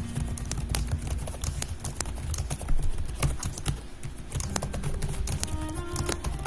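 Fast, irregular keystrokes on a computer keyboard as Bible verses are typed out, with soft background music underneath.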